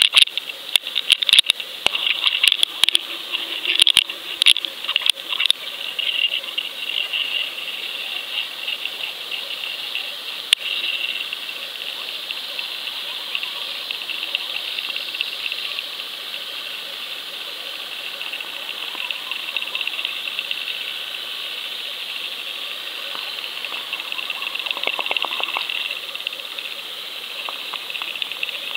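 Steady underwater hiss picked up through a trolled underwater camera's waterproof housing, with rapid clicking and rattling during the first several seconds.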